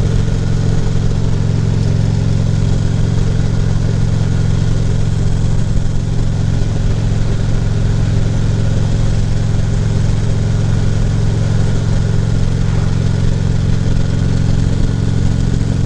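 Harley-Davidson Ultra Classic Limited's V-twin engine running steadily at cruising speed, with wind and road noise.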